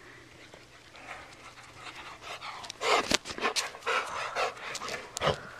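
A dog panting close up: quick, rough, uneven breaths that start about a second in and grow louder from about three seconds in, with a few sharp clicks among them.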